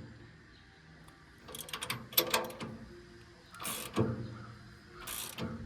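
Ratchet wrench clicking in short runs while the saw bar's mounting nuts are tightened down, with metal tool clatter in between.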